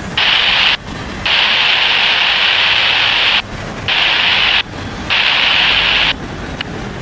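Hissing static from a railroad scanner radio, switching abruptly on and off four times, over the low rumble of a passing freight train of autorack cars.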